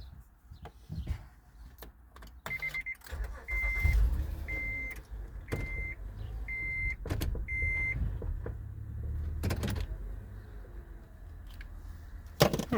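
A Honda Odyssey's warning chime beeping six times, about once a second, over a low rumble. Scattered clicks run through it, and a sharp knock comes near the end.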